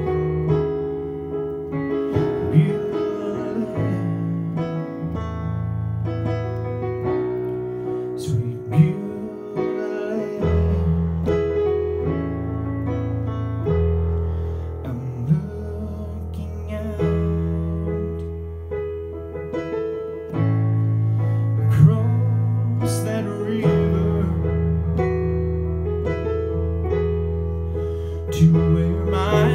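Piano or keyboard music playing slow, held chords over sustained bass notes, the chords changing every few seconds.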